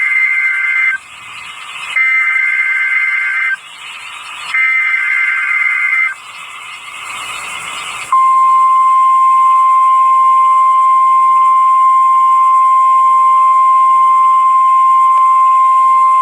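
Emergency Alert System SAME header: three bursts of warbling two-pitch digital data tones, each about a second and a half long, with radio hiss between them. From about eight seconds in, a loud, steady single-pitch alert tone like the National Weather Service's weather-radio attention signal.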